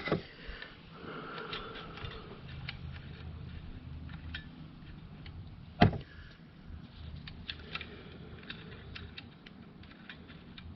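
Light handling noise of a pneumatic narrow crown staple gun being turned over in the hands: scattered small clicks and rustling, with one sharper click a little over halfway through.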